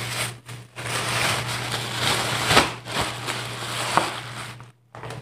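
Thin plastic bag rustling and crinkling as it is handled, with sharper crackles a little past halfway and again about four seconds in, and a short break near the end.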